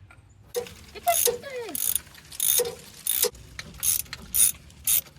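Socket ratchet wrench worked back and forth, starting about half a second in: a series of clicking strokes, roughly one or two a second, with faint squeaks among them.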